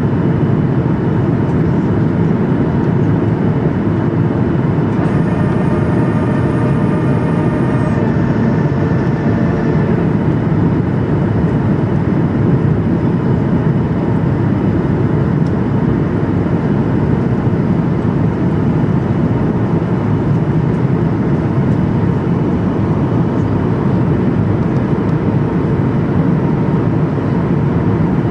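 Steady, loud rumble and rush of a plane's cabin in flight, unchanging throughout. About five seconds in, a steady tone with several pitches sounds over it for about three seconds and then stops abruptly.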